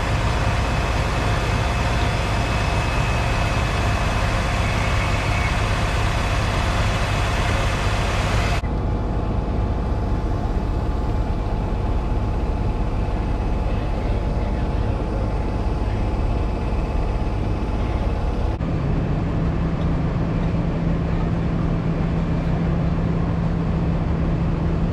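Fire engines running steadily, a loud low drone with steady hums. The sound changes abruptly twice, and a strong low steady tone comes in for the last third.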